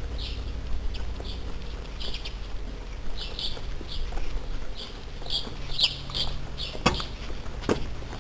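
Small birds chirping: quick, high, repeated chirps coming in clusters throughout, over a low steady rumble. Two sharp knocks near the end.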